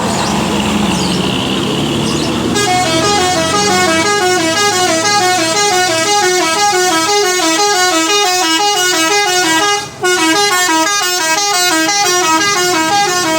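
A bus's multi-tone "telolet" horn plays a fast, repeating tune of stepped notes. It starts about two and a half seconds in and breaks off briefly near ten seconds.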